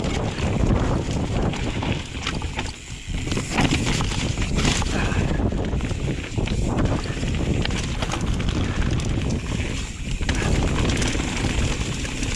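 Wind rushing over a GoPro microphone on a mountain bike riding down a rocky trail, with the bike rattling and knocking over rocks in quick irregular strokes. Loudness dips briefly about three seconds in.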